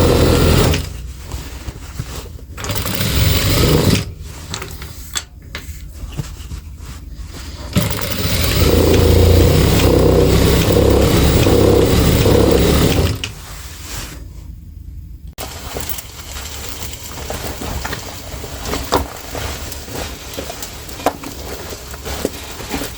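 Sewing machine stitching in short bursts and one longer run of about five seconds, darning over the worn denim. Between and after the runs there are quieter handling noises and small clicks.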